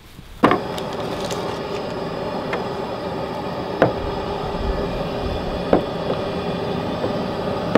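Kitchen knife tapping a cutting board as a stick of butter is cut into cubes: a few sharp, separate taps over a steady hum.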